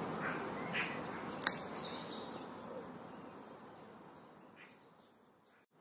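Faint outdoor ambience with a few short bird chirps and one sharp click about a second and a half in, fading away to near silence.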